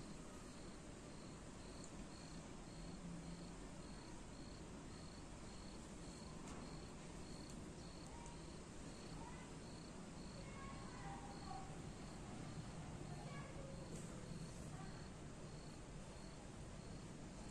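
A faint high-pitched chirp repeating evenly, about two or three times a second, over a low steady hiss.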